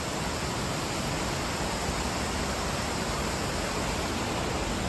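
Waterfall running heavy after days of rain: a steady roar of falling water.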